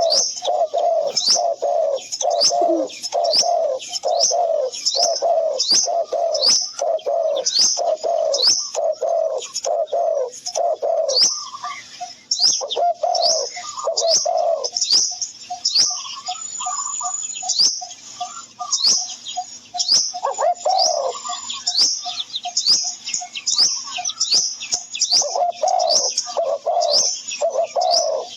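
Birds calling: a quick run of short repeated notes, low calls paired with high chirps at about one and a half a second, thinning out for a while midway before picking up again.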